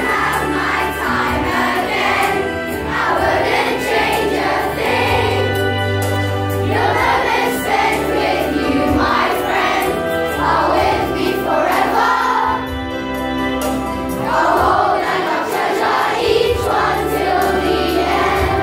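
A group of children singing together in chorus over instrumental accompaniment with steady low sustained notes.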